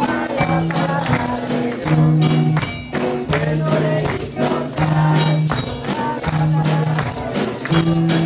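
A song played on acoustic guitar, with children shaking small hand tambourines along in a steady beat and voices singing.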